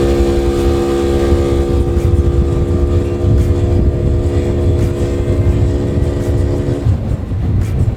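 Polaris RZR's engine pulling under acceleration at a steady held pitch, as its CVT clutches, fitted with a new clutch kit, take up the load. The engine tone drops away about seven seconds in as the throttle comes off, over a heavy low rumble of wind and drivetrain.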